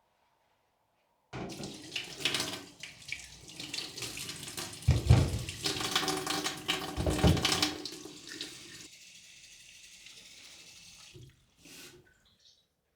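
Kitchen tap running into a sink, with two heavier knocks about five and seven seconds in as something is handled under the stream. The flow then settles to a thinner steady hiss and stops, followed by a short click.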